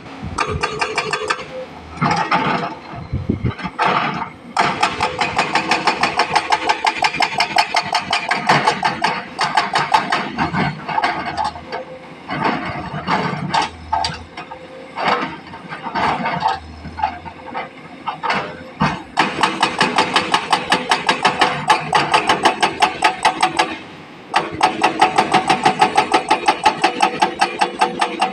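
Sany excavator's hydraulic breaker hammering rock in rapid, even blows, several a second, stopping briefly a few times, with the diesel engine running underneath.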